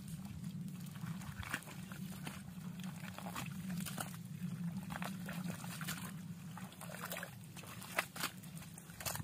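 Wet mud squelching and sucking in irregular short clicks and slaps as hands dig and grope through thick mud, over a steady low hum.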